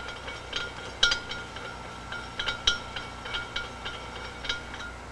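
Light metallic clinks and ticks at an irregular pace, each ringing briefly: metal parts of a turbocharger rotor being handled as the nut is turned loosely onto the rotor shaft.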